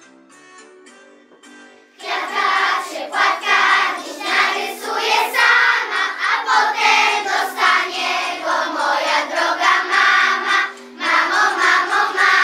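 A group of young children singing a song together, entering loudly about two seconds in after a soft instrumental introduction, with a short break near eleven seconds before they go on.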